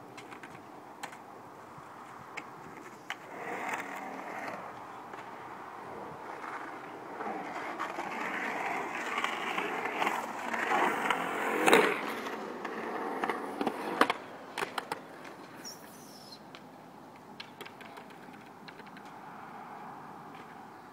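Skateboard wheels rolling and carving across a concrete bowl, the rolling noise swelling through the middle as speed builds. Sharp clacks of the board striking the concrete, the loudest about halfway through and a few more shortly after.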